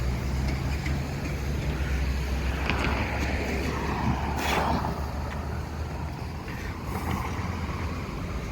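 Large gasoline V8 truck engine running as the truck moves off. Its steady low tone weakens after about five seconds, with a rush of noise peaking about four and a half seconds in.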